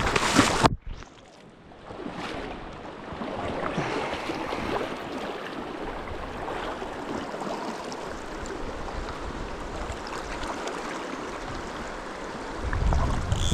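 A river flowing steadily, an even rush of water. Near the end, wind buffets the microphone with a low rumble.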